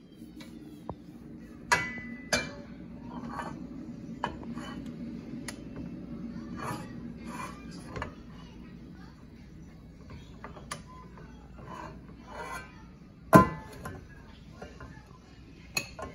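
Serving ladle scraping and clinking against a metal pan and a glass bowl as fried rice is scooped out, with a string of sharp knocks, the loudest about thirteen seconds in. A steady low hum runs under the first half.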